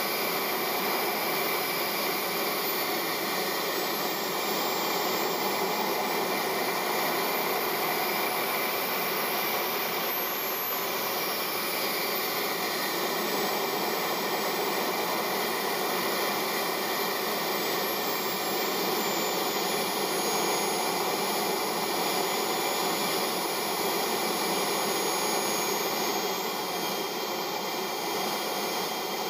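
Small JetCat 160SE model jet turbine running steadily on the ground, heard from inside the model's cockpit: an even rushing whine with high whistles that drift slowly up and down in pitch, with no spool-up.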